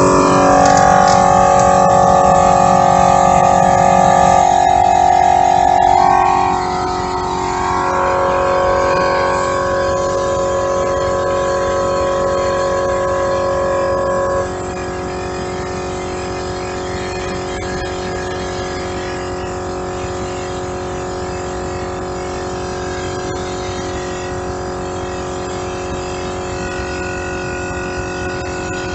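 Portable 12-volt air compressor running steadily while inflating a truck tire, a loud, even motor hum. It gets quieter about six seconds in and again at about fourteen seconds.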